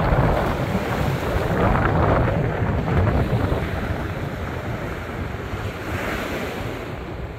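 Strong wind buffeting the microphone over high waves breaking and washing. It is loudest over the first three seconds, then eases.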